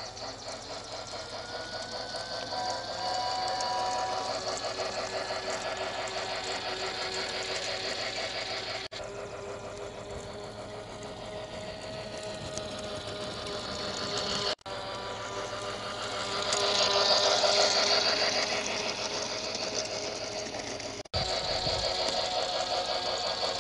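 Toy Polar Express train set's electric motor and gears whirring steadily as the locomotive runs along its plastic track, with a fast rhythmic clatter. It briefly breaks off three times and is loudest a little past the middle.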